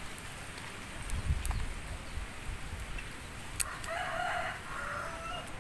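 A rooster crows once, a drawn-out call starting about four seconds in that drops slightly in pitch at the end. Before it there is a brief low rumble and a few sharp clicks.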